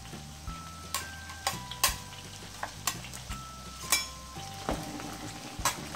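Batter frying in hot oil in a wok, sizzling steadily as it sets into crisp clumps, while a metal ladle stirs it and clinks sharply against the wok about eight times.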